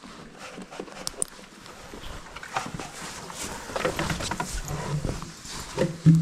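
Handling of a horse's winter blanket and hood: fabric rustling with scattered clicks and knocks from straps and buckles. It gets busier in the second half and ends with a short, loud, low hum-like sound.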